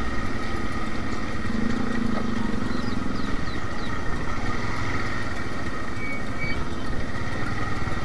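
Motorcycle engines running at low speed, a steady rumble that stays at an even level throughout.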